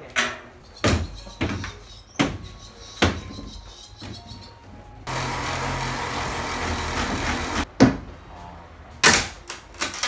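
Demolition knocks: a handful of sharp blows on wood and boards, then a handheld power tool runs steadily for about two and a half seconds in the middle, followed by more heavy blows near the end as a long bar is struck up into the ceiling framing.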